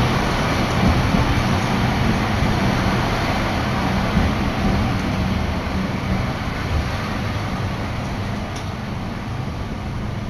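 Streetcar running along its track, heard from inside the car: a steady rumble of wheels and motor with a low hum, growing gradually quieter toward the end.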